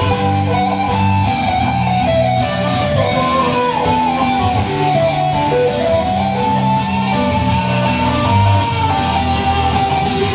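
Live guitar music from a band's acoustic set: an instrumental passage where a lead guitar plays a melody line that slides up and down over a steady strummed rhythm and bass notes, with no singing.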